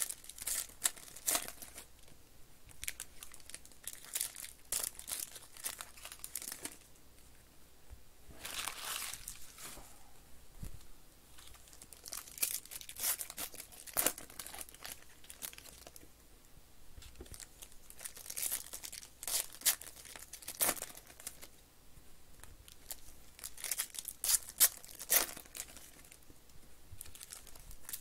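Foil baseball-card pack wrappers being torn open and crinkled by hand, in irregular bursts of crackling with short pauses between them.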